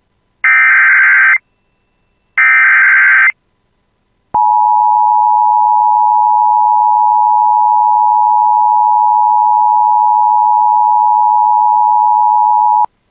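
Emergency Alert System tones: the last two of the three SAME digital header bursts, each about a second long and a second apart, then the steady two-tone EAS attention signal for about eight and a half seconds, which cuts off suddenly. The tones announce that an emergency alert message follows.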